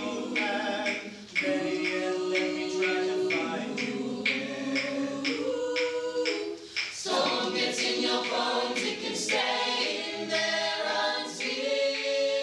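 A group of voices singing a cappella in harmony, holding chords that change every second or two, with a brief dip about a second in and again near seven seconds.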